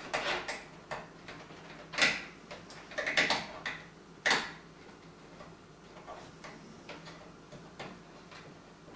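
SATA cables and their plastic connectors being handled and plugged into place inside a PC case: a run of sharp clicks and rustles, busiest in the first half, then faint handling noise.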